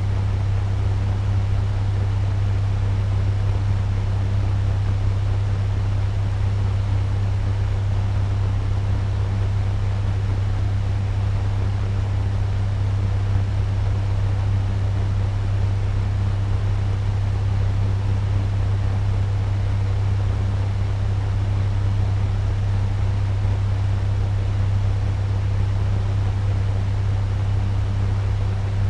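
Turbo fan running steadily at medium speed: an even rush of moving air over a strong low hum.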